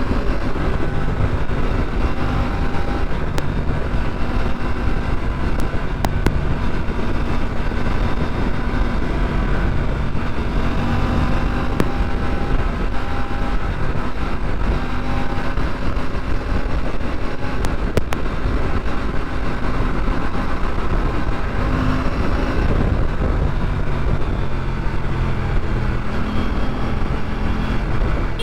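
Aprilia RS 457's parallel-twin engine running steadily under way, its pitch rising and falling a little over a low rumble of road and wind noise.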